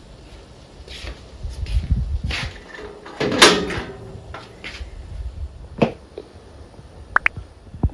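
A string of knocks, clicks and scraping handling noises, the loudest a rough scrape about three and a half seconds in, with sharp clicks near the end.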